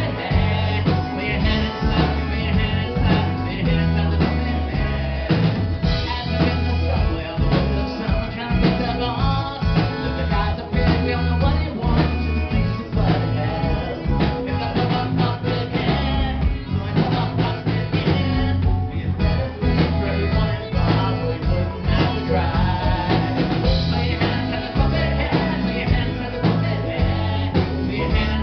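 Live rock band playing through a PA, recorded from within the crowd: keyboards, electric guitar and drum kit with a male lead vocal, the bass heavy.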